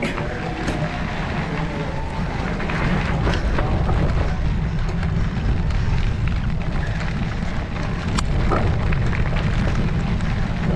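Wind buffeting the microphone while riding a bicycle: a steady, heavy low rumble, with a few sharp clicks and rattles from the bike.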